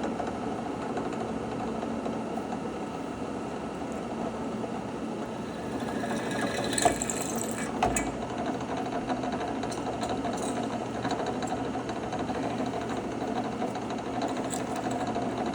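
Drill press motor running steadily, with two sharp clicks about seven and eight seconds in.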